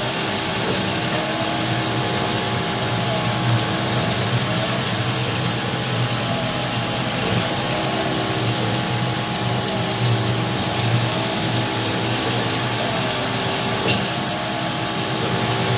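Homemade CNC milling machine cutting a metal plate under flood coolant: the spindle and end mill run with a steady hum and the hiss of coolant spray, and a faint whine rises and falls every second or two as the cut moves along.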